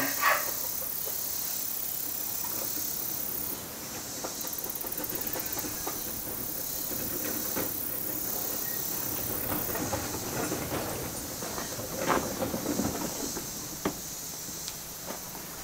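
Rustling and light knocks as straw bedding and a wire cage are handled while a hen is settled inside, over a steady high hiss.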